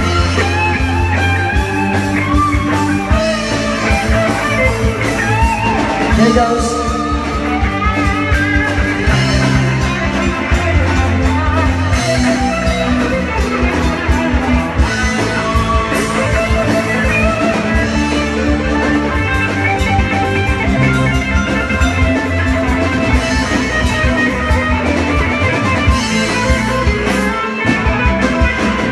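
Live rock band playing an instrumental break: an electric guitar lead with bent, wavering notes over bass and a steady drum beat.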